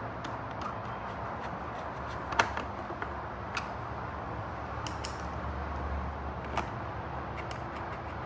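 Scattered small clicks and taps from a screwdriver and Phillips shouldered bolts being handled and fitted into the motorcycle's plastic tail section, the sharpest about two and a half seconds in, over a steady low hum.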